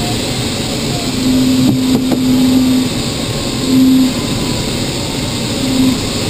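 Steady rush of air past a glider's canopy, heard inside the cockpit in flight with no engine. A low steady tone sounds three times: the first about two seconds long, then two short ones.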